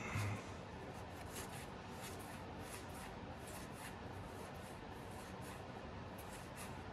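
Pokémon trading cards being slid one over another by hand as a pack is looked through: a run of soft, short swishes, with a light knock just after the start.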